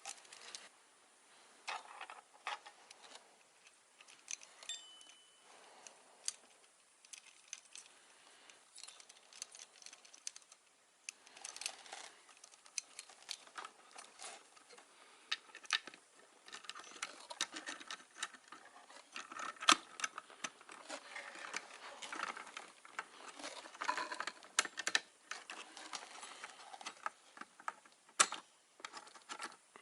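Hands working on computer hardware and a plywood case: many irregular small clicks, taps and light rattles with some rustling, busier in the second half.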